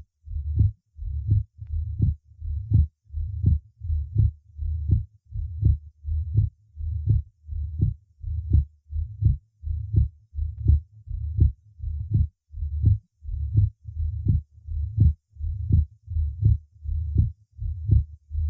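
Heart sounds recorded through a stethoscope over the pulmonary artery, beating evenly at about 80 a minute, each beat a dull low sound followed by a sharper one. This is an accentuated and split second heart sound over the pulmonary artery in a patient with mitral valve disease.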